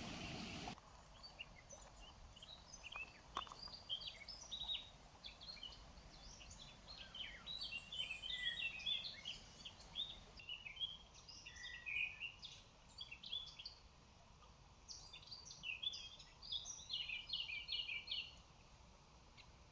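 Small songbirds chirping and twittering in quick clusters of short high notes, busiest in the middle and again near the end. A rush of river water is heard at the start and cuts off abruptly under a second in.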